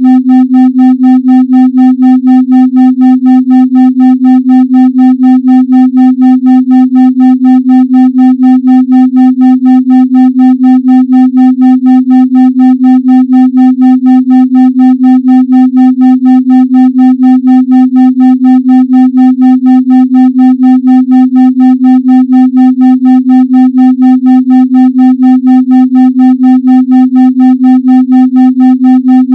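A steady synthesized 256 Hz tone with fainter overtones, pulsing evenly in loudness about three and a half times a second: a 3.5 Hz pulsed tone meant for brainwave entrainment in deep meditation.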